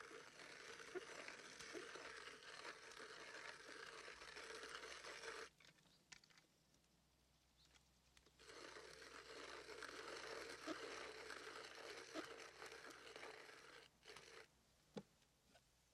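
Hand-cranked wooden box coffee grinder grinding beans: a steady grinding that runs about five seconds, stops for about three seconds, then starts again for about six seconds before stopping near the end.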